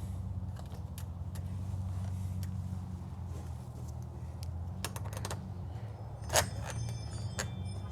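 Small metal lock hardware and screws being handled: scattered light clicks and ticks, with a cluster about five seconds in and one louder metallic clink that rings briefly about six and a half seconds in. A steady low hum runs underneath.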